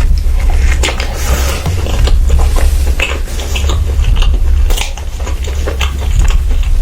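Close-miked eating: biting and chewing with irregular crunches and clicks, and light clinks of dishes, over a steady low hum.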